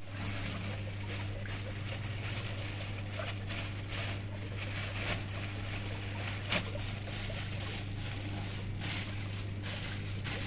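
A steady low electric hum under a constant hiss, with a plastic bag of water and fish fry being handled: light rustling and two sharp crinkles about five and six and a half seconds in.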